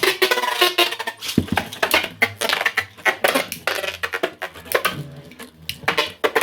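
3D-printed Beyblade spinning tops clashing and clattering in a plastic stadium: rapid, irregular hard clicks and knocks of collisions, with a pitched whir in the first second.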